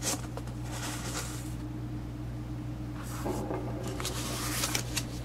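Cardboard rustling and scraping as a steel transmission cluster gear is tipped over and stood upright on it by hand, in several bouts of handling, over a steady low hum.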